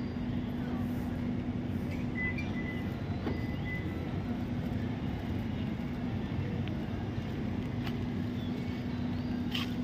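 A steady mechanical hum holding one constant low tone, over a noisy outdoor background with a few faint clicks.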